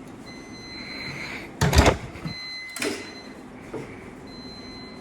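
Coin-laundry washing machine beeping to signal its cycle is complete: three long, steady beeps about two seconds apart. Two loud thumps fall between the first and second beep.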